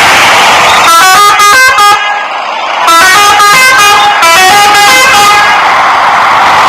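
Pandawa 87 bus's telolet horn, a set of multi-tone air horns, playing a quick tune of short notes. It comes in two runs: a short one about a second in, and a longer one after a brief break.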